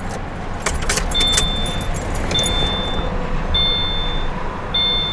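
Car keys jingle and click as the ignition key of a 2013 Subaru Crosstrek is turned, then the car's warning chime beeps repeatedly, one high tone about every second, over a low steady hum.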